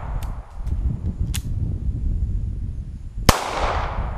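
A single 9mm shot from a Zastava M88A pistol about three seconds in, a sharp crack followed by a long fading tail. A few light clicks come in the first second and a half, over a steady low rumble.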